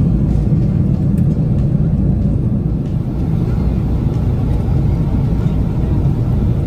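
Steady low rumble of an airliner cabin in flight: jet engine and airflow noise heard from inside the cabin.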